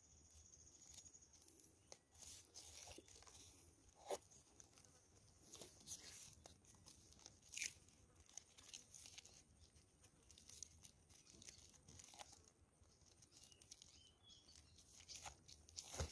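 Faint rustling and crinkling of plastic raffia string being wound and pulled tight around a mud crab's claws, with scattered small clicks and snaps, the loudest about four and seven and a half seconds in.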